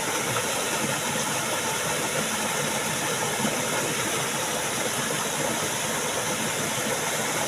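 Steady rushing noise of flowing stream water, even and unbroken.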